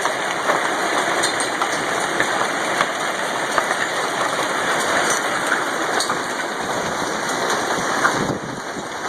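Hailstorm: a dense, steady clatter of hailstones and rain striking hard surfaces, thick with small sharp ticks, easing slightly about eight seconds in.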